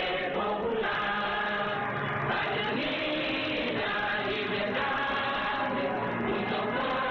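A group of voices singing a chant together, sustained without a break.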